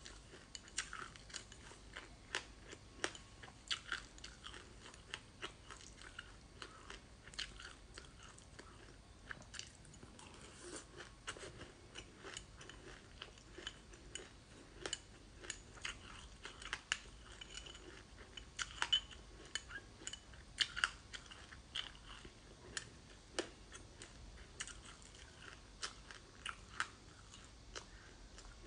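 Close-up crunching and chewing of frozen ice coated in sesame seeds: a dense, irregular run of sharp crackly crunches, with a metal spoon scraping and scooping in a glass dessert bowl.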